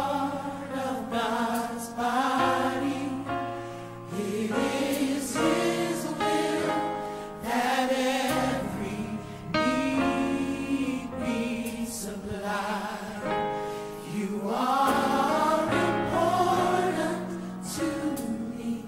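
Background music: a choir singing a slow Christian song with held notes.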